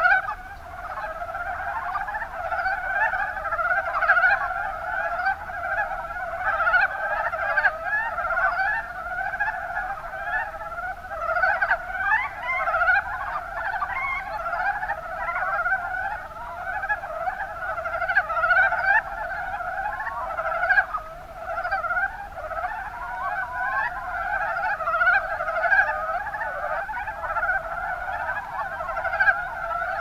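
Mountain brown frogs (Rana ornativentris) calling: many short calls overlapping without a break.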